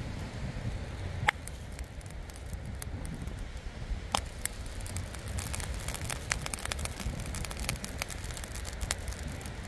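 Wind rumbling on the microphone, with scattered sharp crackles and clicks that come thicker in the second half.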